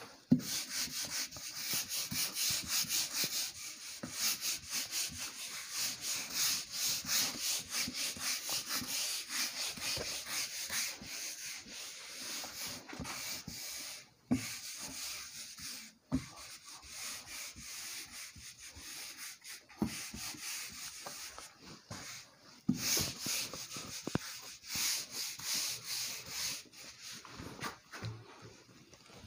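Whiteboard duster wiping marker ink off a whiteboard in quick, repeated back-and-forth strokes, pausing briefly a couple of times. It opens with a sharp knock.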